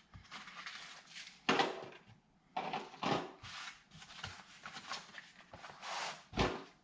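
Hard parts and accessories being handled and set down: a string of light clicks and knocks, with a heavier thump near the end.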